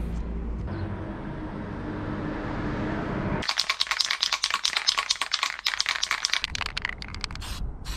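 Aerosol can of CRC Zinc It cold-galvanizing zinc spray being shaken, its mixing ball rattling rapidly inside. The rattling starts abruptly about three and a half seconds in, after low steady background noise, and stops about seven seconds in.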